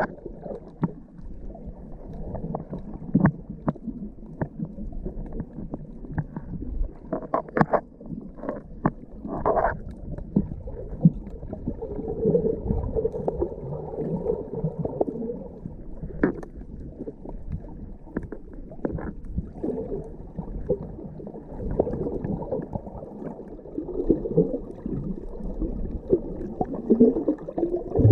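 Muffled underwater sound picked up by a camera held under the water: steady water swishing and gurgling with scattered short clicks and knocks, most of them about a third of the way in.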